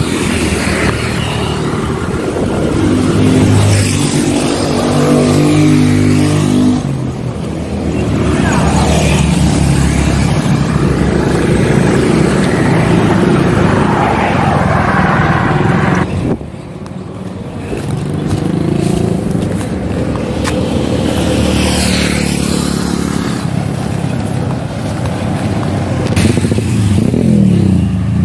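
Road traffic passing close by, motorcycles among it: several vehicles go by one after another, their engine pitch rising and falling as each passes.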